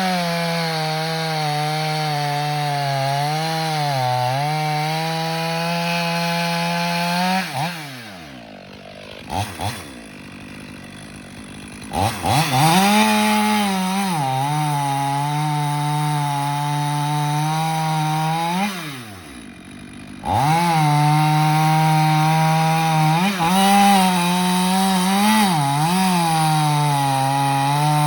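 Chainsaw at full throttle cutting into the trunk of a large red maple, its pitch dipping now and then as it bogs in the wood. Twice it drops back for a few seconds, then revs up and cuts again.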